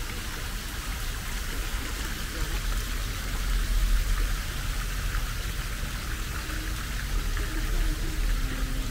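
Steady outdoor background noise: an even hiss with a low rumble beneath, swelling slightly about three to four seconds in.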